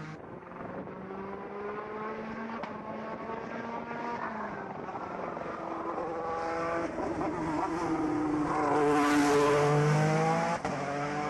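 Peugeot 208 T16 Pikes Peak race car's twin-turbo V6 at full throttle up a mountain road. Its note climbs and drops back with each gear change as it comes nearer, and it is loudest as it passes about nine to ten seconds in.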